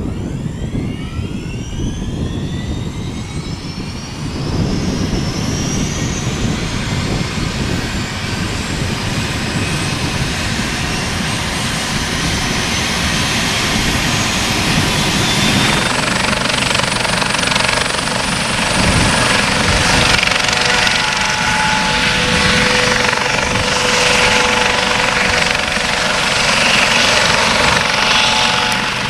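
Eurocopter AS365 Dauphin helicopter starting up: its turbine whine rises in pitch over the first few seconds as the engines spool up, then settles into a steady high whine over the low chop of the turning main rotor.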